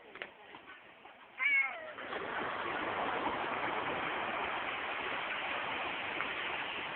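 Steady rush of breaking ocean surf that swells in about two seconds in and carries on, preceded by a small click and a short high cry that slides steeply down in pitch.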